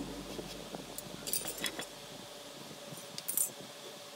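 A few light metallic clinks and wooden taps as a steel try square and chair parts are handled and set down, in small clusters with gaps between.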